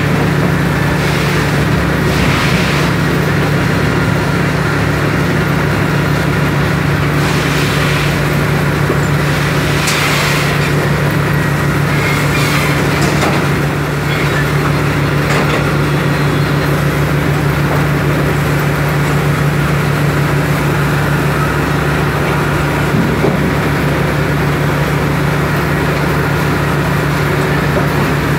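Wheel loader's diesel engine running steadily, a constant low hum under a continuous hiss, with a few brief higher-pitched scrapes or whines.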